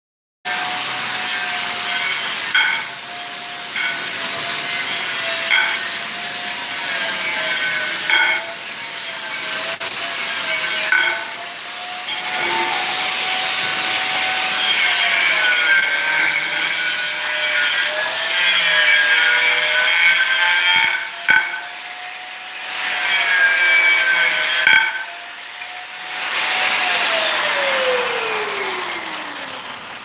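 Hand-held electric power cutter running, its wheel grinding through metal railing tube in several long cutting passes with a harsh, hissing rasp over a steady motor whine. Near the end it is switched off and the whine falls away as the motor spins down.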